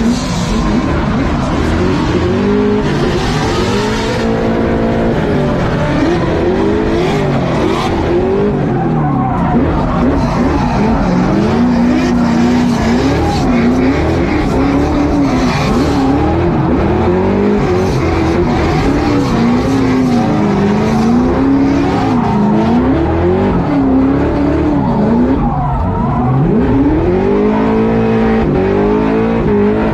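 Fox-body Ford Mustang V8 heard from inside the cabin while drifting. The engine revs rise and fall again and again as the throttle is worked, with tyres squealing under it.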